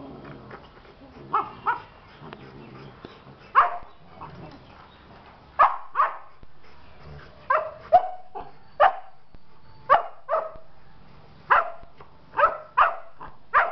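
Rottweilers, a two-month-old puppy and a two-year-old female, barking in rough play: about fourteen short, sharp barks, several in quick pairs, coming every second or so from about three seconds in.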